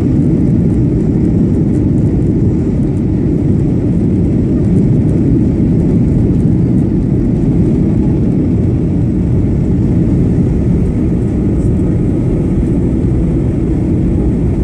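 Boeing 737-900 heard from inside the cabin during the landing rollout: a steady low rumble of engines, airflow and wheels on the runway, easing slightly near the end as the jet slows.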